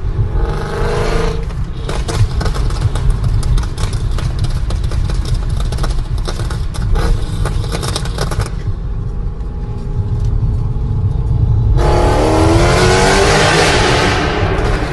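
Mercedes-Benz C63 AMG's 6.2-litre V8 through an iPE exhaust, revved: a short rise in pitch at the start, then a long stretch of rapid crackling and popping from the exhaust as the revs fall. It settles to a lower, steady note past the middle, then rises in pitch again in a hard rev near the end.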